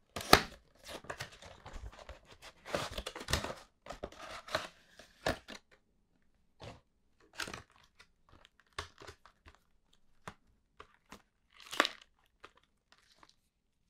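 Retail packaging being opened: a cardboard box flap pulled open and a clear plastic blister tray slid out against the card, with dense rustling and scraping. Then the plastic tray is handled, giving scattered crackles and clicks and one louder crinkle near the end.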